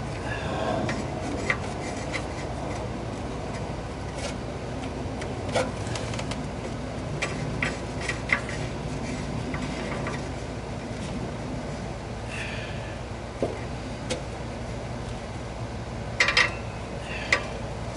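Gloved hands screwing an oxygen sensor into the exhaust pipe by hand under a car: scattered light clicks and rubbing of glove and metal, over a steady low hum.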